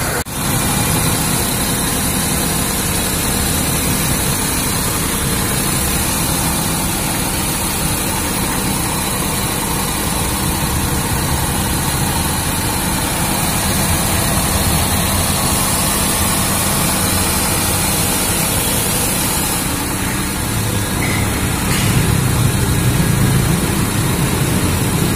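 Maruti Suzuki Alto's three-cylinder petrol engine idling steadily after a half overhaul with new piston rings, head gasket and timing belt. The mechanic calls it silent and running perfectly.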